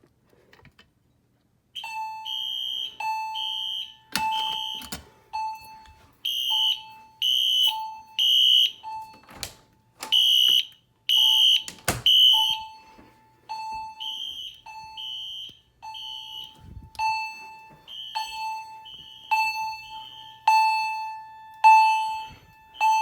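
Home fire alarm system in general alarm after being key-activated, starting about two seconds in. Buzzy horns sound short blasts, largely in groups of three, with a repeated ringing chime tone underneath.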